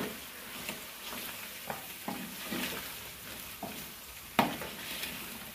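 A steel spoon stirs tomato masala frying in a large aluminium pot. Irregular scrapes and clinks sound against the metal over a steady sizzle, with one sharper clank about four and a half seconds in.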